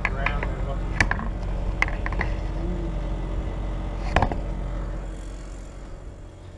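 Convection oven fan running with a steady low hum, with sharp metal clinks and clatter as the oven rack and baking tray are handled. The hum fades near the end.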